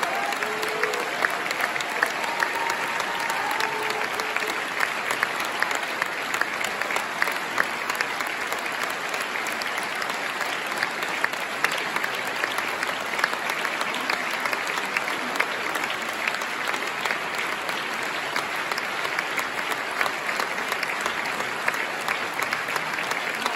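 A large concert-hall audience applauding: dense, steady hand-clapping of a prolonged standing ovation.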